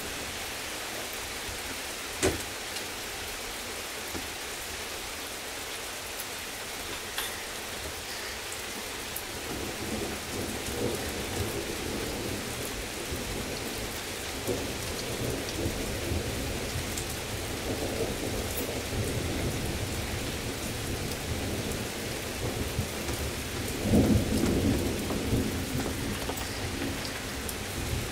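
Heavy rain falling steadily, with a single sharp tap about two seconds in. Thunder rumbles from about ten seconds in and rises to its loudest a few seconds before the end.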